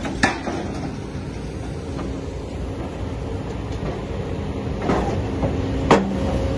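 Hidromek HMK220 excavator's engine and hydraulics running steadily while its VTN CI200 scrap shear cuts steel, with sharp metal snaps about a quarter second in, near five seconds, and a loudest one near six seconds as the jaws cut through.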